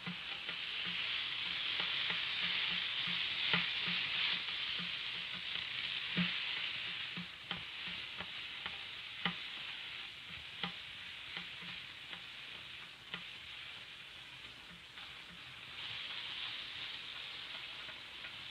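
Steady hiss with scattered clicks and pops from the worn optical soundtrack of a 1930s film, and no other sound. The hiss is stronger in the first half and again briefly near the end.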